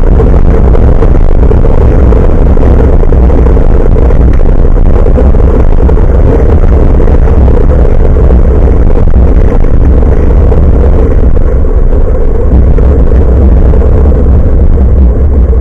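Loud, steady wind and road rumble of a bicycle ride, picked up by an action camera's microphone hanging from the handlebars.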